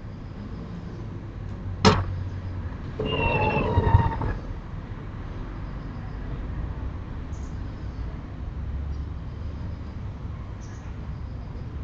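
A sharp click, then a sliding window rumbling and squeaking open for about a second, over a steady low background hum.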